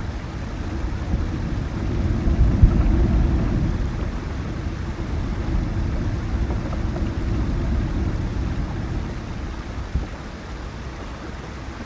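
Low rumbling noise with no clear notes opens an ambient drone track. It swells about two to three seconds in and eases off toward the end, with a brief thump near the end.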